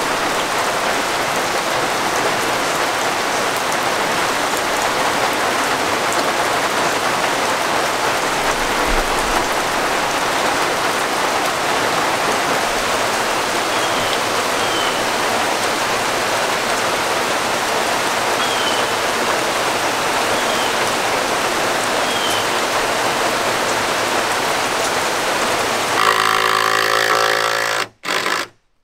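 Steady rain falling, an even hiss, with a few brief high chirps partway through. Near the end a different, louder sound takes over for about two seconds, then everything cuts off.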